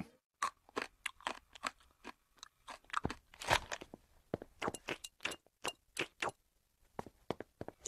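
Someone chewing crunchy cheese balls: a run of irregular crisp crunches that stops briefly near the end.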